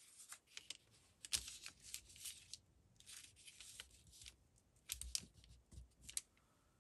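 Paper scraps being handled: a string of short, faint, irregular rustles and crinkles.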